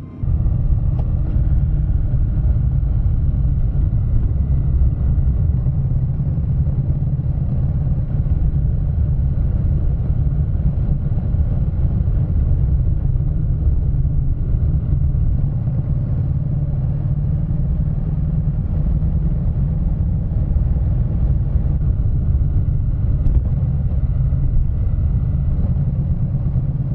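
Honda NC700X motorcycle cruising at a steady speed, heard from a camera mounted on the bike: a loud, steady low rumble of its parallel-twin engine mixed with wind and road noise.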